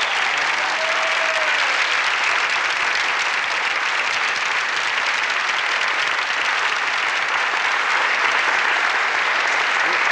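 A crowd applauding, many hands clapping at a steady, even level.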